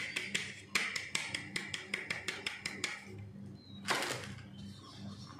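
Rapid, regular clicking of a wire whisk and flour sieve against a stainless steel mixing bowl, about seven clicks a second, as flour is sifted and worked into cake batter. The clicking breaks off briefly after half a second and stops just before three seconds in. A single short, louder scrape comes about a second later.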